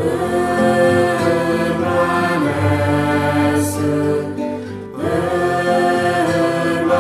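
Slow sacred choral music: held sung notes, with a new phrase entering at the start and another about five seconds in.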